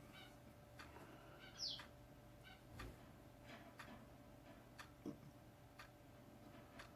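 Near silence with faint, scattered small clicks and ticks, roughly one a second, from small plastic model parts and tools being handled at the bench. A brief high squeak falls in pitch about one and a half seconds in.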